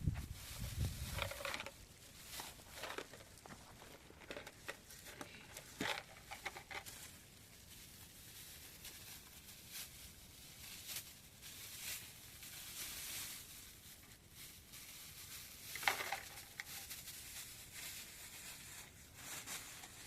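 Faint, scattered rustling and crinkling with small clicks, as of things being handled, with a sharper knock about sixteen seconds in.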